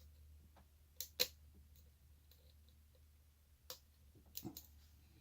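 Short hook and tension wrench clicking against the pins and keyway of a shutter lock being picked: a few sharp metallic clicks, two close together about a second in and a quick cluster near the end.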